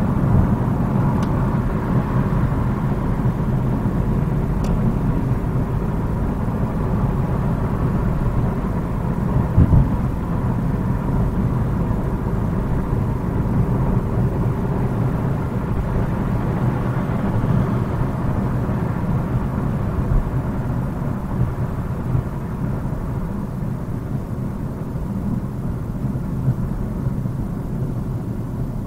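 Steady road and engine rumble inside a moving car, picked up by the dash cam's built-in microphone, with one short thump about ten seconds in.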